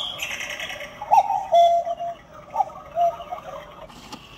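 Battery-powered electronic cuckoo clock sounding its cuckoo call as the bird comes out: two high-then-low "cuck-oo" notes, about a second and a half apart.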